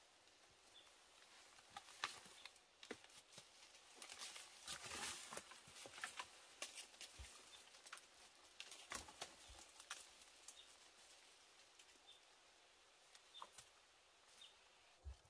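Near silence with faint rustling and scattered light clicks, busiest about four to seven seconds in, and a few faint, short, high chirps.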